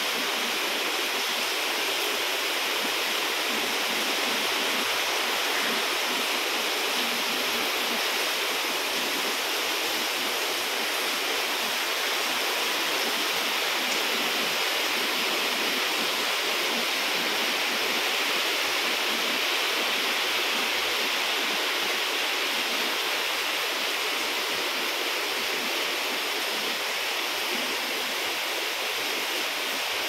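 Heavy rain falling steadily on the leaves of trees: an even hiss that does not let up.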